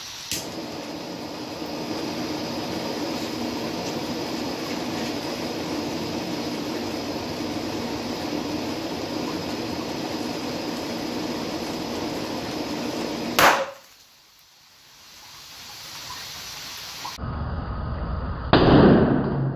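Butane blow torch clicking alight, then hissing steadily as its flame heats a sealed aluminium drink can. About 13 seconds in a sharp crack cuts off the hiss, and near the end comes the loudest sound, a burst lasting under a second as the heated can bursts open.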